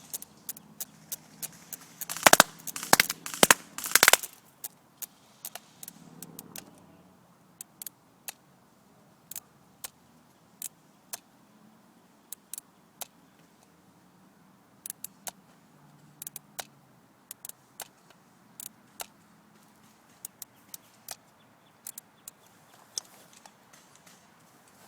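Airsoft guns firing: a quick run of loud shots about two to four seconds in, then scattered single pops.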